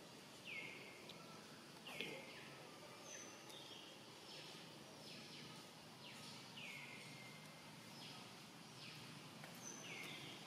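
Faint outdoor ambience with a series of short high calls, each dropping in pitch and levelling off, repeating roughly once a second. There is one sharp tap about two seconds in.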